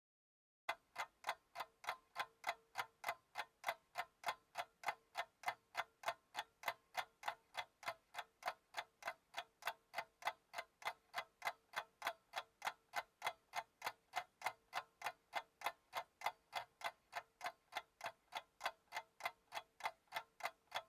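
Steady clock-like ticking, about three ticks a second, starting just under a second in.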